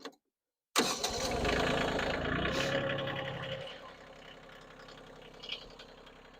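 Kioti tractor's diesel engine running. It cuts in abruptly a second in, runs loud for about three seconds, then drops back to a quieter, steady idle.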